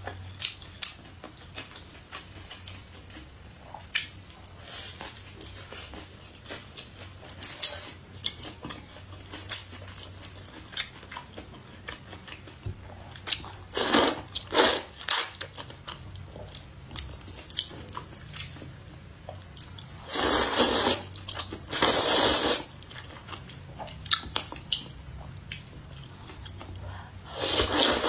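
Close-up eating sounds: wet chewing of a sesame-topped Chinese burger with small clicking mouth sounds. Then loud slurps of luosifen rice noodles: about 14 s in, twice around 20 to 22 s, and again near the end.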